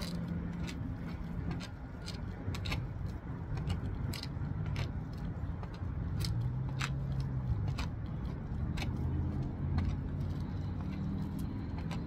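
Plastic sheeting worn under a shirt crinkling in short, sharp, irregular crackles as the arms work dumbbells, over a low steady rumble.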